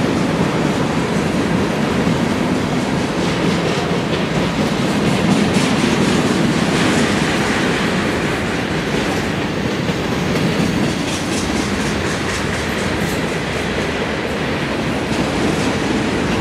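Freight train cars rolling past close by: a steady rumble of steel wheels on rail with a clattering clickety-clack as the empty centerbeam flatcars and boxcars go by.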